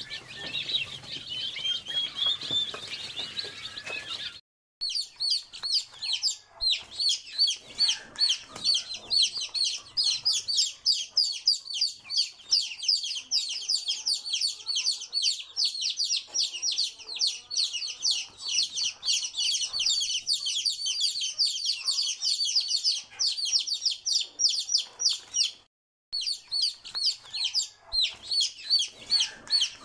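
A brood of young native chicks peeping all together: many short, high-pitched cheeps overlapping in a dense, unbroken chorus. It drops out briefly twice, about four and a half seconds in and again about 26 seconds in.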